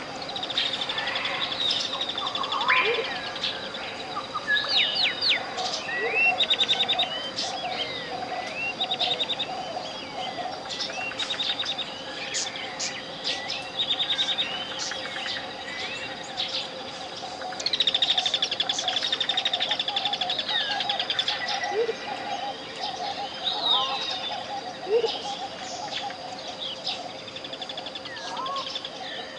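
Many tropical jungle birds chirping, whistling and trilling over one another, layered over a steady pure 528 Hz tone and a softer wavering hum beneath it.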